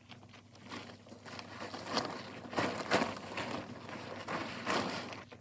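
Irregular rustling and scuffing: a run of short noisy sounds, busiest and loudest from about two seconds in.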